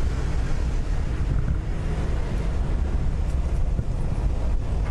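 Steady low rumble of wind buffeting the microphone of a moving vehicle, mixed with its engine and road noise while driving.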